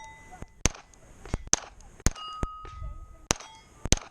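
A .22 rimfire pistol (a modified GSG 1911-22) fires about seven shots at irregular intervals of roughly half a second to a second. Steel target plates ring briefly with a clang after several of the shots as they are hit.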